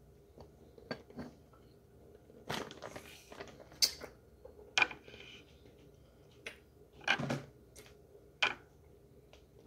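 A metal spoon clinking and scraping in a bowl of raw starch chunks, and a plastic bag of wheat starch crinkling as it is handled, in a handful of short, sharp clicks and rustles.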